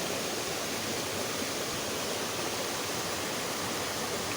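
Small shallow river flowing: a steady, even rush of water.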